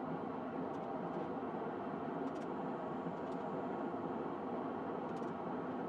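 Gas forge burner running with a steady rushing roar while a knife blade heats inside it to hardening temperature, with a few faint clicks.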